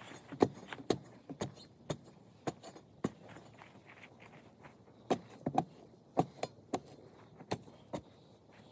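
Steel pry bar striking and tamping concrete mix around the base of a wooden post: about a dozen sharp knocks at uneven intervals, with a pause of about two seconds near the middle.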